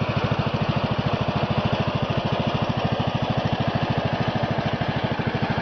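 A small engine running steadily at idle, a fast even pulsing of about eleven beats a second.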